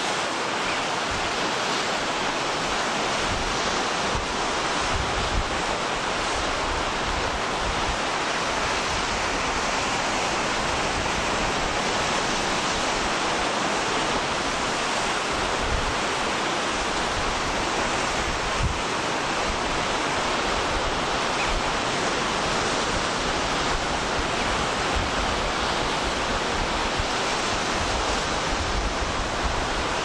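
Steady rush of wind and sea surf, with low gusts of wind buffeting the microphone.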